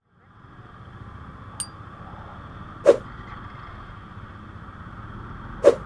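Steady road and traffic noise from a moving motorcycle in a city street, fading in, with two brief sharp knocks about three seconds apart.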